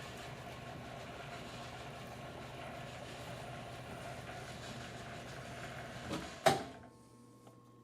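Metal lathe running steadily in its slowest, first-gear speed. About six and a half seconds in there is a sharp clunk, and the running sound stops, leaving only a faint hum.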